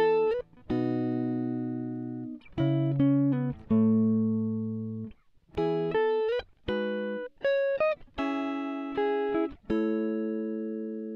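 Background music of plucked chords, each struck and left to ring and fade, with short gaps between them.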